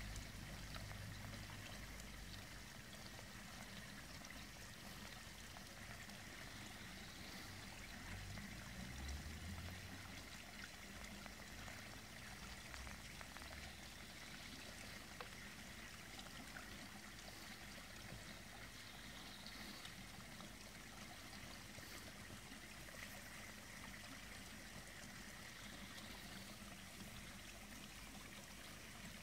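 Faint, steady trickling and splashing of water flowing into a garden koi pond, with a few low rumbles, the loudest about nine seconds in.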